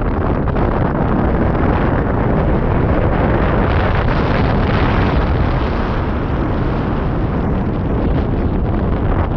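Loud, steady rush of wind over a camera microphone mounted on a hang glider in flight, the airflow at flying speed. It grows a little brighter around the middle as the glider banks into a turn.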